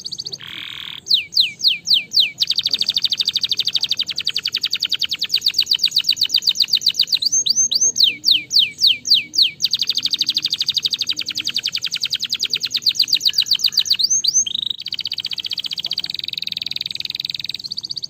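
Domestic canary singing. Short runs of clear descending whistled notes alternate with long, very fast rolling trills. A run of whistles opens the song, comes again in the middle, and briefly once more before a softer trill near the end.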